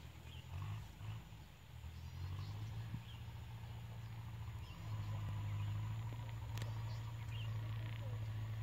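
A steady low rumble that grows louder about halfway through, with faint short bird chirps about once a second above it.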